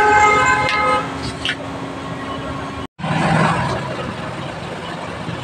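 Road traffic with a vehicle horn honking in short blasts during the first second, over a steady hum; the sound drops out briefly at about three seconds, then steady traffic noise carries on.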